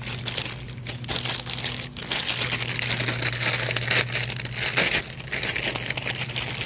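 Plastic mailer bag crinkling and rustling as it is handled and opened, a dense stream of crackly rustles.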